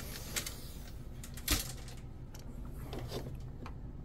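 A few light clicks and taps from hands handling parts of an RC boat during an electronics install, with one sharper click about one and a half seconds in, over a steady low hum.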